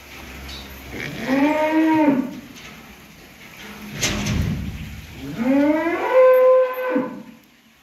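Cow mooing twice: a short call, then a longer one that holds a steady pitch before it breaks off. A sharp knock falls between the two calls.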